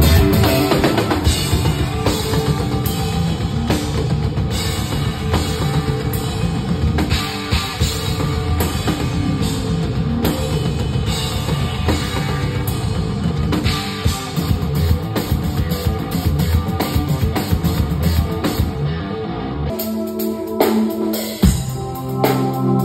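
Rock drumming on a full drum kit, with bass drum and cymbal hits, played along with a rock backing track that has guitar. Near the end the drumming thins out over sustained low notes.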